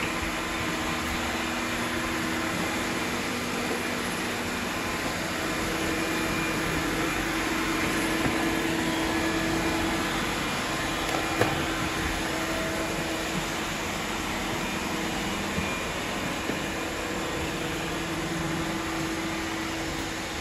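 Several robot vacuums running at once on a hardwood floor, a steady whir of suction motors and brushes with a faint hum. A single sharp click about halfway through.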